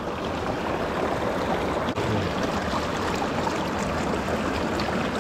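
Shallow stream water running over rocks: a steady rushing babble.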